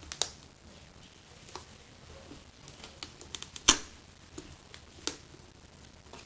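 Scattered small clicks and taps of plastic cable connectors being handled and plugged in on a drone's remote controller as amplifier power cables are fitted. The clicks are irregular: a small cluster about three seconds in and the loudest snap just after it.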